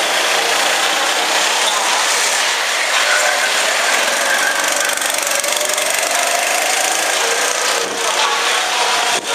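Go-kart engines buzzing as karts lap the track, the pitch rising and falling as they speed up and slow through the corners.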